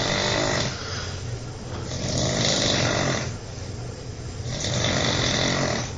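A sleeping man snoring loudly in a steady rhythm, three big snores roughly every two and a half seconds with quieter breaths between.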